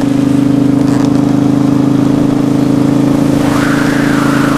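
Triumph Speedmaster's parallel-twin engine running steadily at a constant cruising speed, with a wash of wind and road noise.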